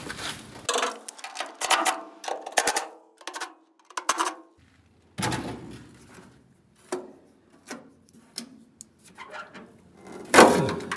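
Cordless DeWalt 20V MAX impact driver hammering in short bursts as it backs out a large Phillips-head screw from rusty truck-cab sheet metal. Scattered clicks follow, then a loud knock near the end.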